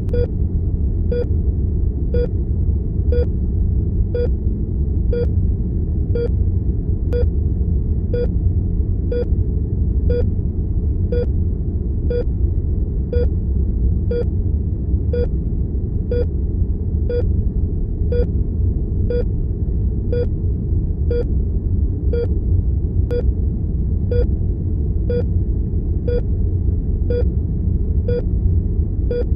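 Heart monitor beeping steadily, one short beep about every second, over a steady low rumble of room tone.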